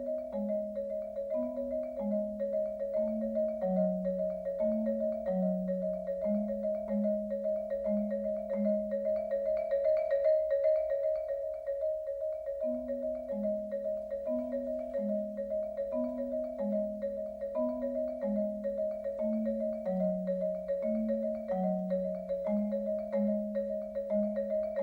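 Music played on mallet percussion, marimba-like: a fast high figure of repeated notes over a lower bass line that steps down and starts over about every twelve seconds.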